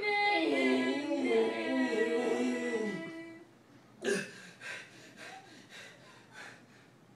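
A voice singing a wordless, wavering tune for about three seconds, then a string of short, sharp, breathy sounds.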